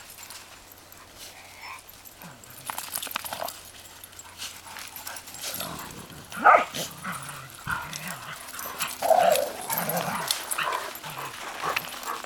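Dogs vocalising at rough play: a loud, sharp call about six and a half seconds in and another strong bark-like call around nine seconds, with shorter calls between them, over scattered short clicks and scuffs.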